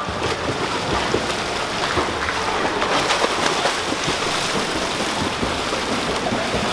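Swimmers' strokes and kicks splashing and churning the pool water, a steady noisy rush of water.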